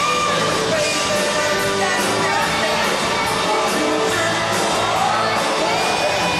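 Live rock band playing a song with a steady drum beat, with a singer's voice over the band.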